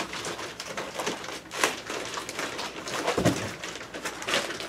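Packaging being handled as a boxed vinyl cutter is unpacked: plastic wrap and foam rustling, crinkling and scraping, with a dull thump about three seconds in.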